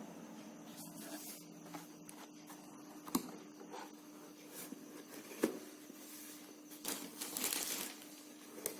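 Packaging being handled during a shoe unboxing: paper crinkling and rustling, with a few sharp knocks and a longer rustle near the end.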